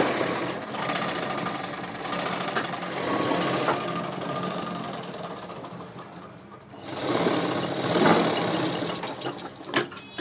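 Sewing machine stitching fabric, running steadily. It eases off briefly about two-thirds of the way through, then runs again, with a few sharp clicks near the end.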